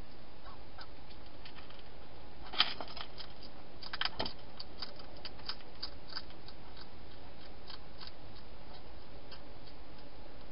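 Wild hedgehog chewing dry food: irregular sharp crunching clicks, busiest about two and a half and four seconds in, over a steady hiss.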